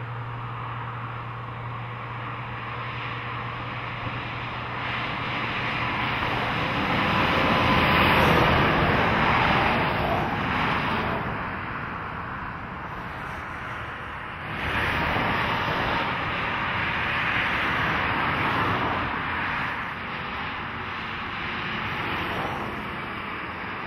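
Heavy trucks and cars passing on a highway, tyre and engine noise swelling as each goes by. It is loudest about eight seconds in, and again from about fifteen seconds, with a smaller pass near the end.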